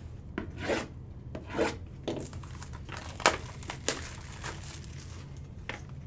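Hands handling a cardboard trading-card box on a table mat: scattered rubbing and scraping with light taps, and a sharper click a little past three seconds in.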